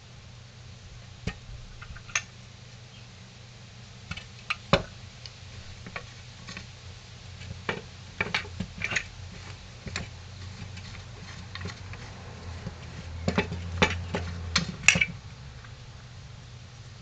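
Irregular sharp metallic clicks and taps of hand tools working on a Husqvarna 385XP chainsaw crankcase while it is being split, over a low hum. The clicks come in scattered clusters, with the loudest taps about a third of the way in and near the end.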